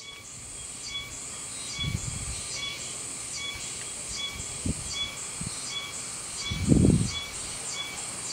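Outdoor ambience with a high-pitched call repeated in a steady rhythm, about three every two seconds. Two low rumbles break through, a short one about two seconds in and a louder one near the end.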